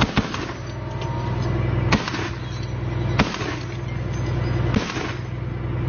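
M2 Browning .50-calibre heavy machine gun firing four single shots, about a second and a half apart, over the steady running of the M113 armored personnel carrier's engine.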